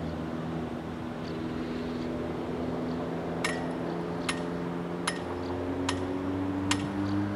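SM48 diesel shunting locomotive's engine working under throttle, its note rising gradually over the second half as it puts out black smoke. Sharp metallic clinks about every 0.8 s start a few seconds in.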